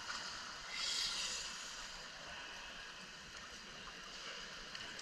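Swimming-pool water sloshing and lapping, with a brief louder swell of water noise about a second in.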